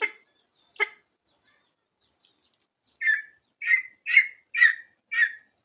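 Junglefowl calling: two short, sharp calls near the start, then a run of five calls about half a second apart.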